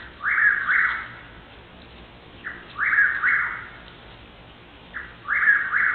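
Chuck-will's-widow singing its night song: a three-part phrase, a short note followed by two longer ones, repeated three times about every two and a half seconds.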